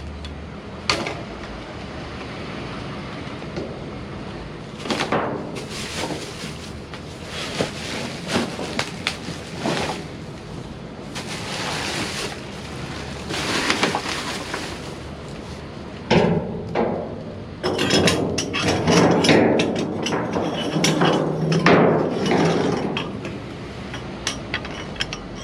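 Discarded items being rummaged through and handled: rustling with scattered knocks and clinks, busier and louder about two-thirds of the way in.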